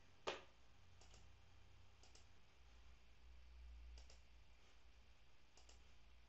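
Computer mouse clicks: one sharper click just after the start, then four faint paired clicks spread irregularly, over a faint low hum.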